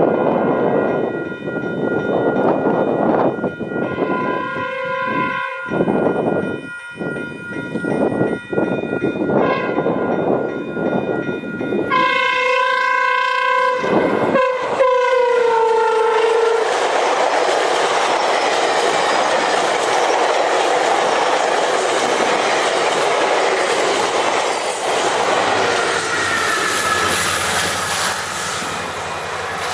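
GO Transit cab car's horn sounding a series of blasts of an odd, weird-sounding chord, the last and longest one sagging in pitch as it dies away about halfway through. The train's steady rushing and rail noise follows as it runs by.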